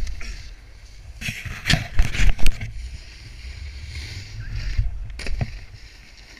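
Snowboard sliding and carving on packed snow, its edge scraping as it turns, with wind rumbling on the camera microphone. A cluster of louder, harsher scrapes comes about two seconds in, with a few more near the end.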